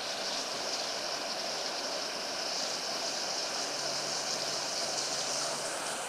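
Victor Falls, a waterfall on Terrace Falls Creek, running: a steady, even rush and hiss of falling water.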